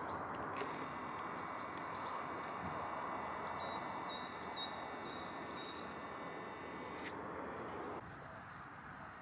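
Quiet outdoor garden ambience: small birds chirping in short high notes over a steady background rush.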